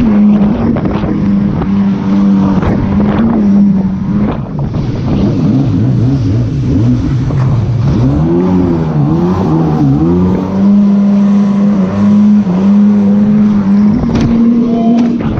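Jet ski engine running hard at a steady high pitch. The throttle is eased and opened several times around the middle, so the pitch dips and climbs, with rushing wind and spray noise over it.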